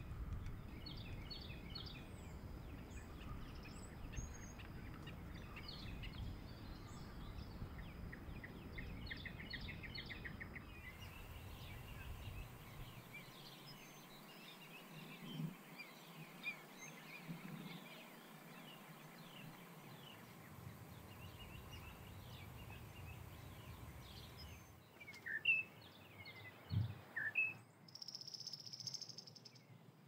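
Outdoor natural ambience of small birds chirping and insects trilling over a low rumble. Near the end come a few louder, sharp call notes, followed by a brief high steady buzz.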